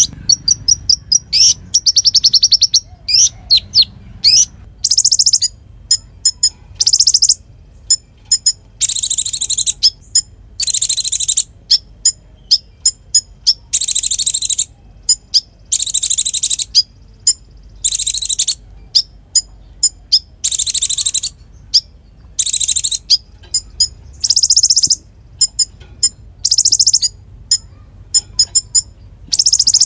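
Konin songbird singing hard and without pause: loud, high-pitched, rapid trilling phrases about a second long, one after another with short gaps, as in a full 'gacor' song used as a training recording for other cage birds.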